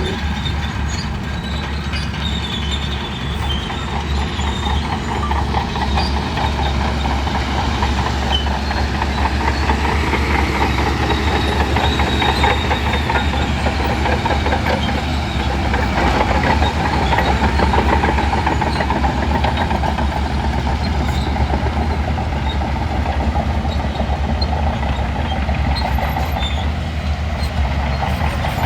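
Shantui crawler bulldozer's diesel engine running steadily, with a fast, continuous clatter from its steel tracks. It gets slightly louder in the middle.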